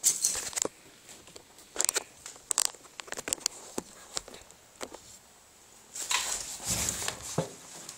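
Handling noise from a phone being moved and propped up: scattered clicks, knocks and rustling, with a longer rubbing scrape about six seconds in. The snowmobile engine is not running.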